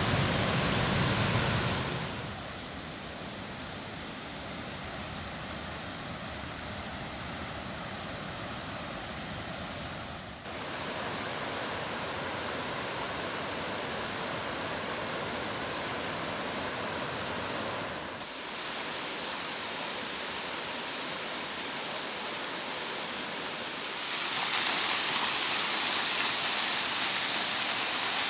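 Hooker Falls, a waterfall, rushing in a steady, even hiss of falling water. Its loudness and tone jump suddenly a few times, and it is loudest and brightest near the end.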